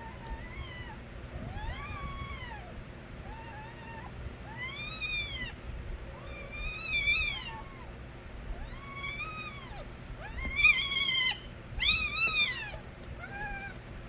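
Kittens meowing over and over, a dozen or so separate meows that rise and fall in pitch, two of them overlapping near the end as more than one kitten cries at once. The loudest cries come about eleven seconds in.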